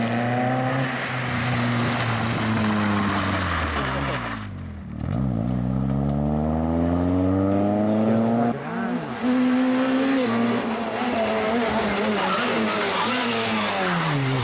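Rally cars' engines on a tarmac stage: a Renault Clio revving high, easing off about four and a half seconds in, then pulling hard with a long rising note as it accelerates away. After a break about nine seconds in, an Opel Astra's engine revs through a corner.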